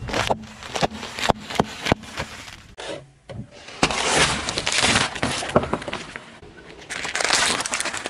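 Things being crushed under a car tyre: a quick run of sharp cracks and pops as bags of crisps burst and the chips inside crunch, then, after a brief gap, longer spells of dense crunching and splitting as a row of fruit is flattened.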